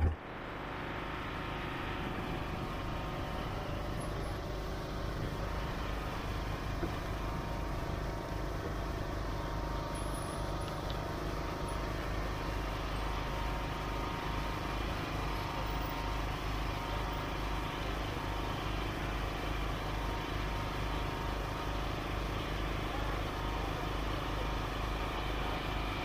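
Boat engine running steadily while the boat is under way at sea: a constant low, evenly pulsing hum with several steady tones above it.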